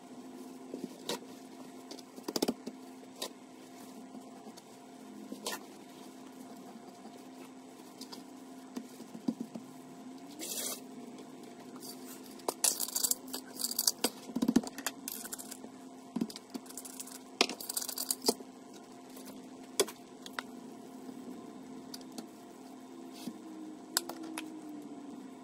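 Kitchen handling sounds: a paper towel rustling as a raw steak is patted dry, then scattered clicks, taps and short rattles of spice containers being picked up, opened and shaken, thickest in the middle. A steady low hum runs underneath.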